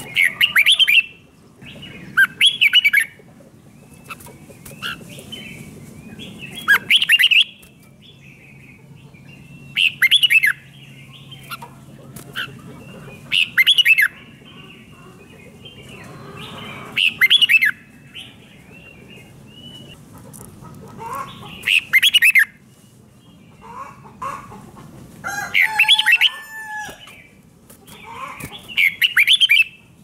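Red-whiskered bulbul singing short, loud, warbling phrases of quick falling notes, each about a second long, repeated every three to four seconds.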